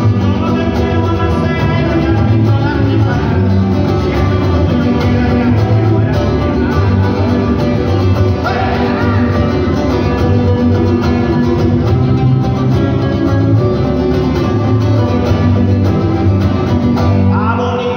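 Live band music: a small acoustic guitar strummed over a steady electric bass line.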